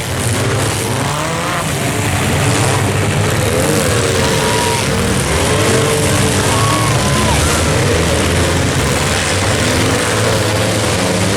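Several compact cars' engines revving and running hard at once in a demolition derby: a loud, dense din whose pitch keeps rising and falling.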